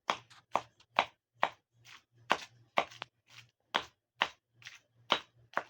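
Raw chicken meat being pounded for rista in steady, even strikes, about two a second, to work the added salt into the meat.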